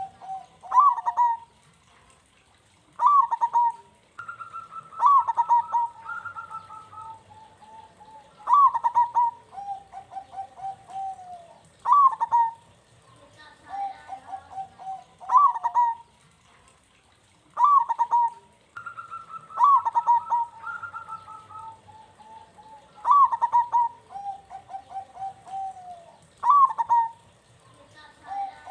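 Zebra dove (perkutut) cooing over and over, a phrase every few seconds: each a sharp rising note followed by a rapid rolling, stuttering coo.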